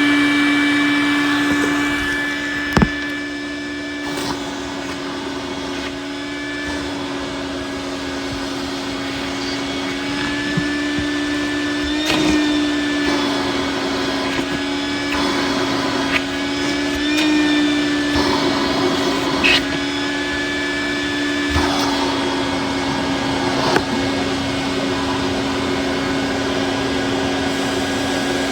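Vacuum cleaner running with a steady hum, its pitch wavering now and then, and scattered sharp clicks and rattles as bits of weed whacker string, duct tape and paper are sucked up; the loudest click comes about three seconds in.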